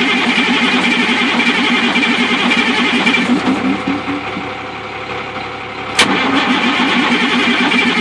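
Caterpillar diesel engine in a Freightliner Century Class semi being cranked over by its starter with a steady whine and rapid even pulsing. The cranking stops about three seconds in, then a sharp click about six seconds in and the cranking starts again: repeated attempts to start the engine after work on its fuel system.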